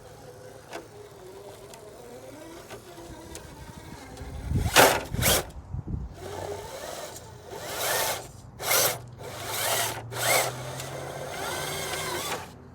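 RC crawler's electric motor whining as it drives, with a low steady hum that rises a little in pitch. From about five seconds in come several loud, short, noisy bursts.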